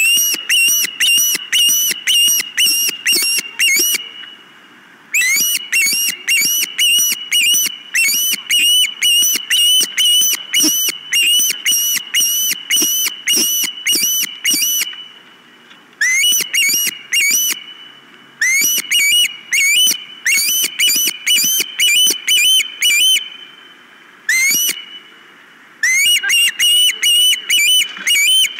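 Osprey calling: a loud run of short whistled chirps, about three a second, in long bouts with a few brief breaks.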